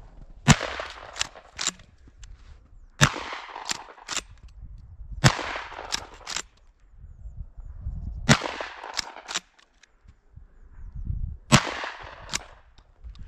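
A gun firing five shots, roughly every two and a half to three seconds. Each shot is a sharp crack with a short fading tail, followed by one or two fainter cracks.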